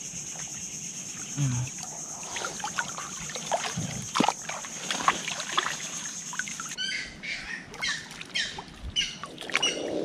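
Muddy water sloshing and splashing as hands dig through the mud for lokan clams, with a steady high buzz behind it that gives way to a series of repeated chirps about seven seconds in.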